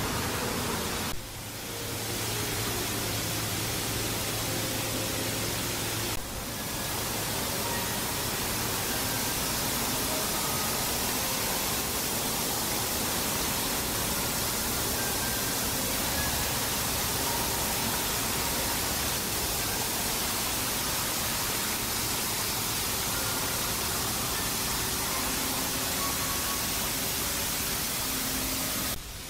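Steady, even hiss of broadband noise. It dips briefly about a second in, again about six seconds in, and just before the end.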